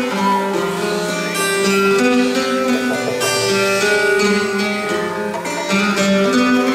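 Amplified bouzouki played live: plucked notes with long, held tones ringing under them, thick with reverb.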